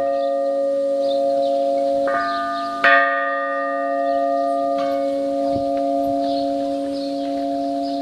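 Orthodox church bells in a belfry, rung one bell at a time: three clapper strikes about two, three and five seconds in, each leaving a long ringing tone that decays slowly over the steady hum of a bell struck just before.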